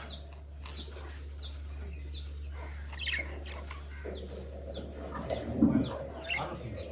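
Budgerigars chirping and chattering: short falling chirps repeat about every half second, with a louder burst of chatter about five to six seconds in. A steady low hum runs underneath.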